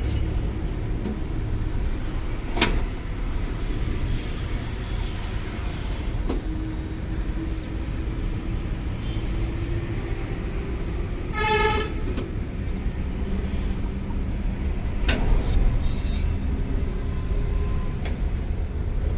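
Steady low rumble of a running engine. It is broken by two sharp clicks and, about midway, a short horn-like toot.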